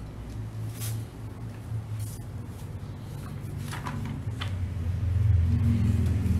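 Low male voices chanting a sustained drone in the Armenian liturgy, swelling louder about five seconds in, with a few light clicks.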